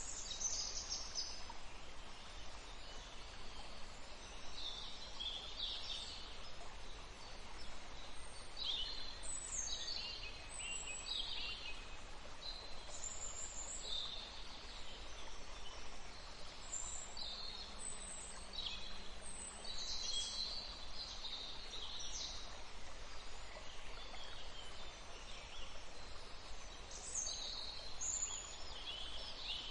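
Several birds chirping and trilling in short calls throughout, over a steady background hiss of outdoor ambience.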